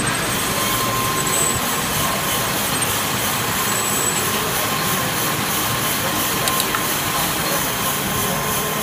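Manual metal lathe running steadily while turning a titanium bone screw, a constant machine noise with a faint steady whine.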